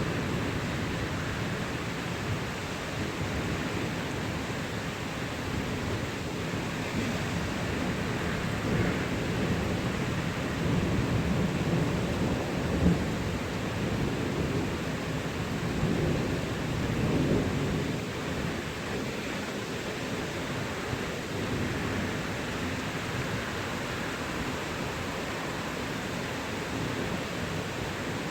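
Thunderstorm: steady rain with thunder rumbling, swelling in the middle, and one short sharp knock about halfway through.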